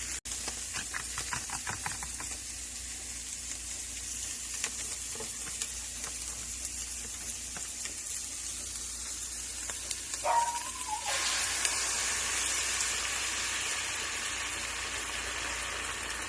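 Eggs with chopped chicken, tomato and onion sizzling in a frying pan, with a few light clicks of a utensil against the pan early on. About ten seconds in there is a short squeak, and the sizzle then grows louder.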